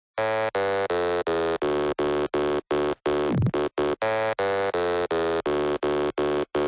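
Buzzy electronic synth tone chopped into even pulses about two and a half times a second, with one falling swoop a little past halfway: the stuttering intro of an electronic dance track.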